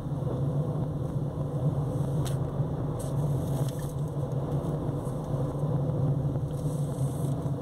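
A car driving, heard from inside the cabin: a steady low engine hum over even road noise.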